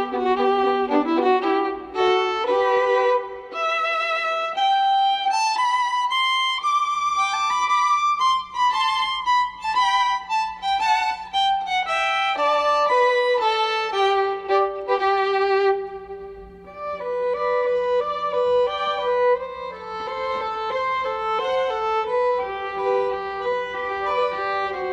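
Background music: a violin playing a melody with vibrato.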